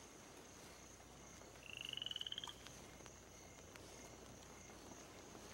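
A frog calling once about two seconds in: a fast rattling trill lasting about a second and rising slightly in pitch, over a faint steady high tone of night ambience.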